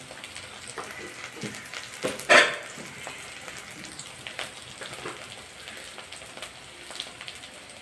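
Mustard oil sizzling in a kadai with onions, chillies and spices frying: a steady patter of small crackles and pops. A brief louder tonal sound stands out about two seconds in.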